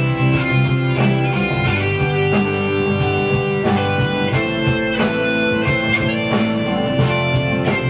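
Guitar played solo: a steady run of plucked notes and chords, several a second, each ringing on under the next.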